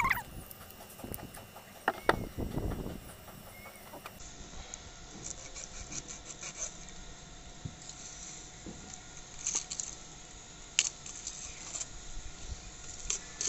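Faint scattered clicks and soft taps of hands working a fish's body on a concrete floor, pulling its skin off. There is one sharper click about two seconds in.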